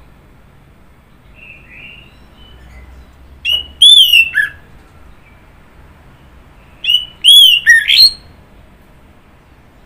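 Orange-headed thrush singing: two loud phrases of quick, sliding whistled notes, the first about three and a half seconds in and the second about seven seconds in, with faint soft twittering before the first.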